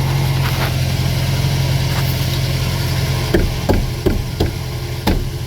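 2008 Mazda 3 engine idling steadily, with no fuel pump whine to be heard now that the pump module has been replaced. A few light clicks or knocks come over it in the second half.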